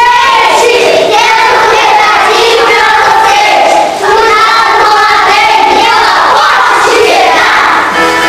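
A group of children singing together in chorus, a song in Portuguese.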